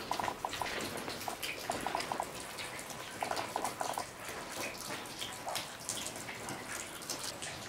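Water dripping in a flooded building: many scattered drips, with short quick runs of pitched plinks just after the start, around two seconds in, and between three and four seconds in.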